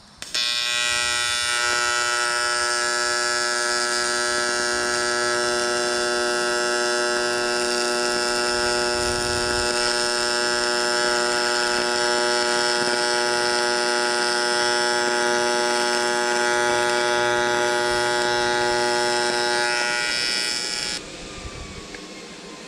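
TIG welding arc on aluminum, a loud, steady electric buzz that stops abruptly near the end.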